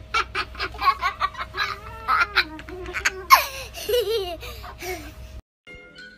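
Quick repeated bursts of laughter, then higher sliding, wavering cries, over a faint steady hum; the sound cuts off suddenly about five seconds in.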